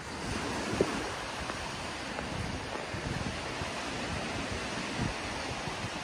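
Wind buffeting the microphone, mixed with the steady wash of sea surf on the beach below.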